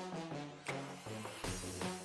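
Background electronic music with a steady beat and a rising sweep near the middle.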